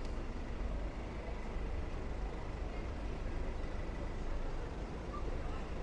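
City street traffic ambience: a steady low rumble of road vehicles, with no single event standing out.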